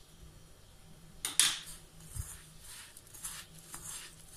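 Hand mixing and squeezing a crumbly biscuit-and-cocoa mixture in a glass bowl, a soft repeated rustle of strokes, with one sharp knock of a metal spoon against the glass bowl a little over a second in.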